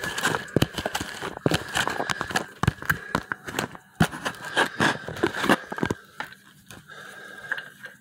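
Irregular crinkling, clicking and scraping handling sounds that stop about six seconds in, leaving a faint steady high-pitched whine.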